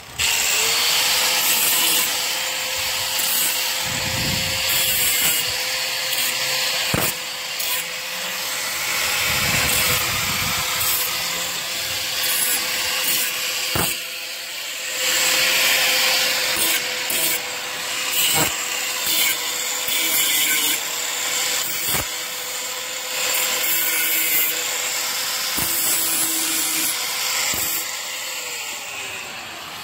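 Angle grinder running with a steady whine, cutting into a golf cart's body panel in repeated rasping passes. The motor winds down near the end.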